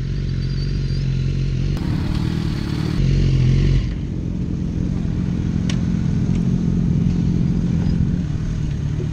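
Several race motorcycles idling on the starting grid, the nearest a Kawasaki ZX-6R. The engine sound swells briefly about three seconds in.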